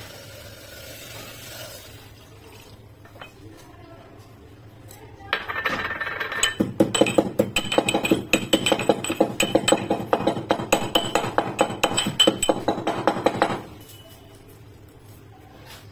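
Metal pestle pounding in a small stainless-steel mortar: a fast run of ringing metallic strikes, several a second, starting about five seconds in and stopping after about eight seconds.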